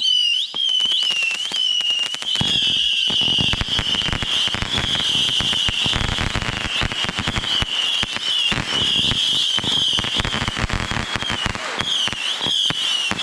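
Ground fireworks going off: a continuous high, wavering whistle over dense rapid crackling pops. The crackling gets heavier a couple of seconds in.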